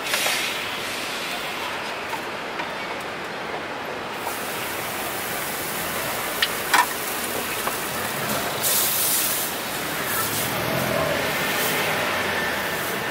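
Crepe batter sizzling on a hot round griddle as it is poured and spread thin with a wooden spreader, the hiss coming in about four seconds in, over steady street noise. A couple of sharp taps near the middle.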